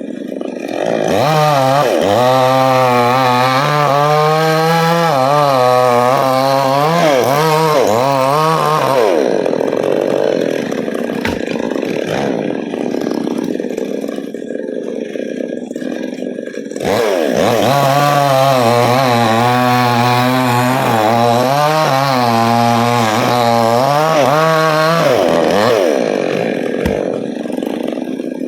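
Chainsaw cutting into a coconut trunk in two long cuts of about eight seconds each, its pitch wavering throughout. The saw rises to full speed at the start of each cut and drops back at the end, running more quietly in between.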